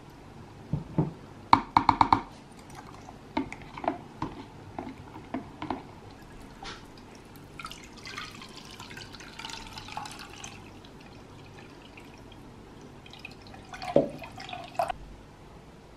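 Liquid dripping into a jug of coconut milk, with a quick run of clinks about two seconds in. Then coconut milk pours through a fine mesh strainer into a bowl, and a short run of splashes and drips comes near the end.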